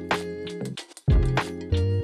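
Background pop music with a bass line and a steady drum beat; it cuts out for a moment a little before the middle, then comes back in.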